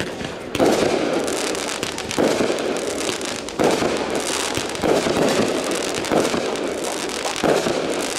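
Consumer aerial fireworks shells bursting in a series: about five sharp reports at irregular gaps of one to three seconds, each trailing off in a dense crackle.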